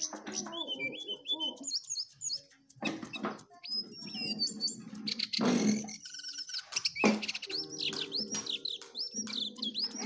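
Caged jongkangan songbird singing vigorously: a fast, varied run of high chirps and whistled notes that rise and fall, with short pauses between phrases.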